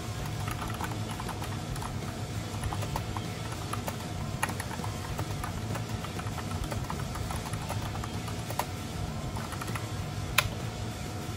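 Typing on a Razer BlackWidow V3 mechanical keyboard: many quiet, scattered key clicks, with a few sharper clacks, the loudest near the end.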